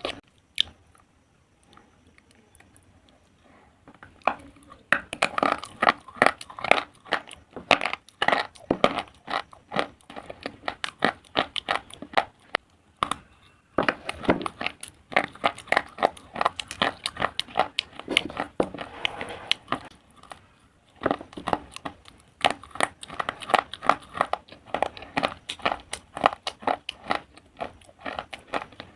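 Close-up crunching of a person chewing hard slate pencil pieces: a quiet few seconds, then long runs of dense, crisp crunches broken by short pauses.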